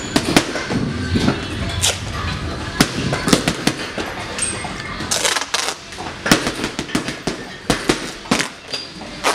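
Boxing gloves smacking a heavy punching bag in rapid, irregular flurries of punches, sharp thuds coming several to the second.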